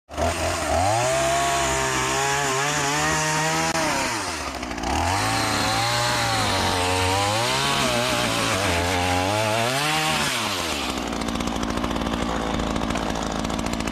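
Gas chainsaw running, its engine pitch rising and falling several times as it is throttled, then dropping to a steady idle about eleven seconds in.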